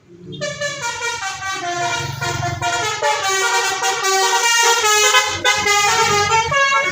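A bus's telolet horn playing a melody: several horn tones sounding together and stepping up and down through a short tune, starting suddenly and lasting about six and a half seconds.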